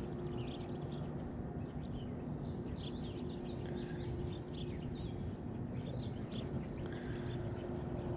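Birds chirping and calling on and off over a steady low background noise, with a faint steady hum underneath.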